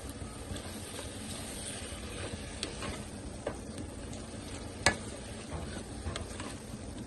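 Keema, potatoes and freshly added chopped tomatoes frying in oil in a kadhai, a steady sizzle while a spoon stirs. Scattered scrapes and clicks of the spoon are heard, with one sharper knock on the pan about five seconds in.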